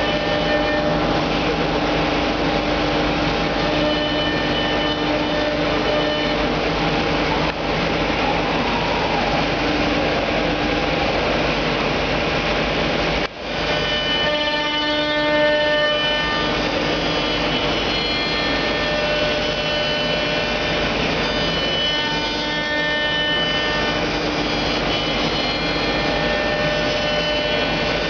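MAKA MM7 5-axis CNC milling machine running, its spindle and cutter milling a workpiece: a steady cutting noise with high whining tones that shift in pitch in steps as the tool moves. There is a brief break about 13 seconds in.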